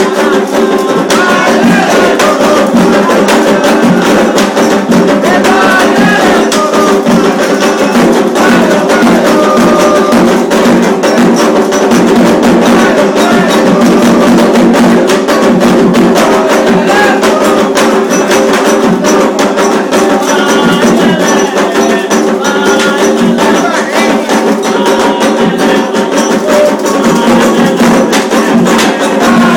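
Candomblé ritual music: atabaque hand drums beating a fast, continuous rhythm with a clicking bell or wood-block pattern, and voices weaving over it.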